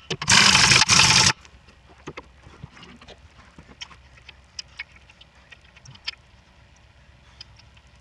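Pneumatic impact wrench running on a lug nut of a Case 580K backhoe wheel, loud for about a second and then cutting off. Faint scattered metal clicks follow as lug nuts are turned by hand.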